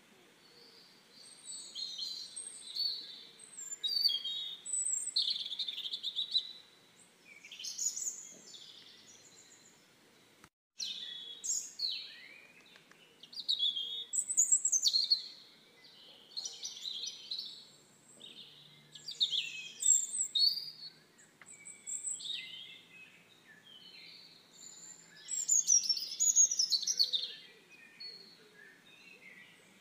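Small birds chirping and singing on and off, in short high calls, many of them quick falling sweeps.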